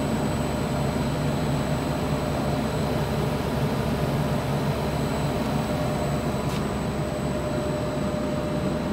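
Large rotating machine running at a steady speed during its timed cycle: a constant low hum with a thin steady whine above it, unchanging throughout.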